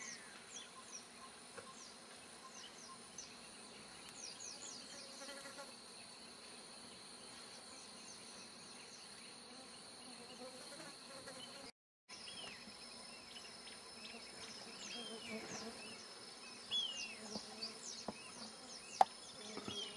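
Rainforest clearing ambience: insects buzzing with a steady high drone, and many quick, high bird chirps with a few arched calls over it. The drone breaks off briefly near the middle and comes back slightly higher. There is a single sharp click near the end.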